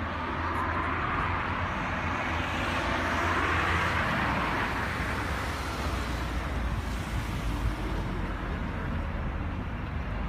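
Road traffic noise: a steady low rumble under a rushing sound that swells over a few seconds and then fades.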